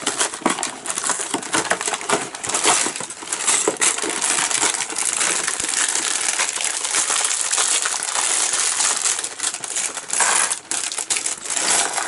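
Lego set being unpacked: plastic parts bags crinkle and rustle as they are handled and torn open, with small plastic bricks clinking and rattling against each other throughout.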